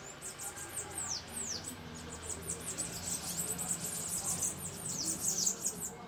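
Hummingbirds chittering: a steady stream of high, squeaky chips, with a couple of quick falling squeals about a second in.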